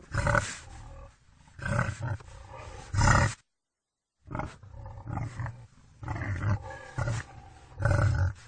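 Wild boar calling in a string of loud, harsh grunts. There are two runs, separated by about a second of dead silence a little after three seconds in.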